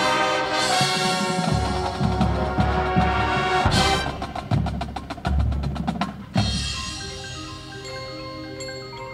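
Marching band playing a loud full-band passage over heavy bass-drum hits, ending on a sharp accent a little past six seconds in. It then drops to a soft passage of marimba and other mallet percussion playing moving notes.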